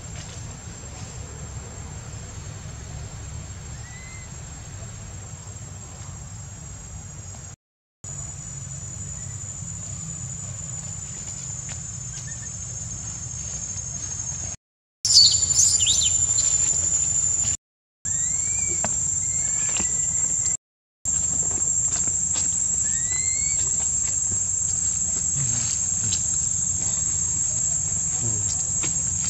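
Steady high-pitched drone of insects, with a few faint short rising chirps and a brief high squeal about halfway through; the sound cuts out completely four times for a moment.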